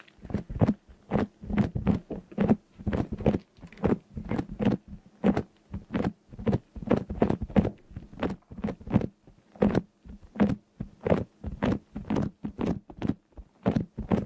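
A quick series of short taps or knocks, about three a second, uneven in loudness.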